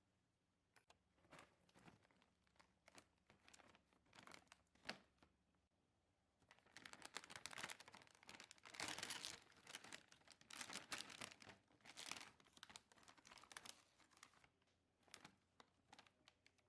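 Packaging being handled: scattered rustles, then several seconds of continuous crinkling and tearing of plastic or paper wrapping, then a few more rustles near the end.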